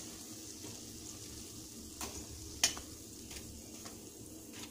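Odading dough buns sizzling steadily in hot oil in a steel wok, with metal tongs clicking against the pan several times, the sharpest click a little past halfway.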